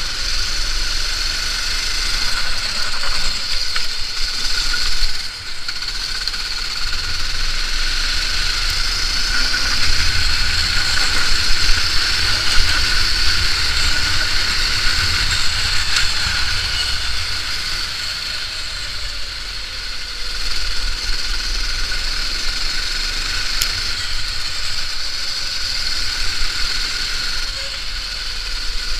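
Onboard sound of a racing kart's engine running at speed, a steady high-pitched engine note with low wind buffeting on the microphone. The level drops briefly about five seconds in.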